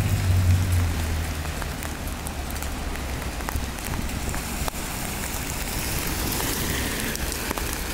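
Heavy rain with large drops pattering on wet asphalt: a steady hiss with scattered sharp drop hits, growing brighter in the last couple of seconds. A low rumble is heard in the first second or so.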